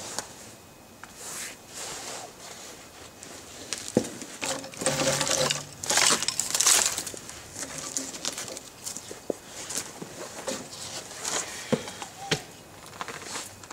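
Dry pine twigs rustling and crackling as they are pushed by hand onto a small kindling fire, with a few sharp snaps. Loudest about five to seven seconds in.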